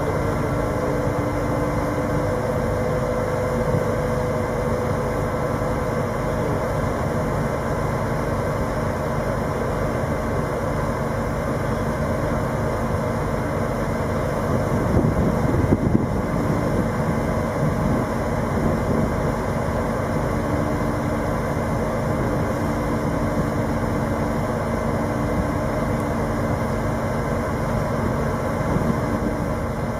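Heavy vehicle engine running steadily at a constant low hum, with a brief louder, rougher stretch about halfway through.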